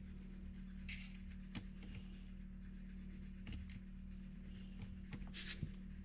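Faint handling sounds: a few light clicks and brief scrapes as a cordless drill's bit is set against a screw in a wooden shelf frame, over a steady low hum. The drill itself is not run.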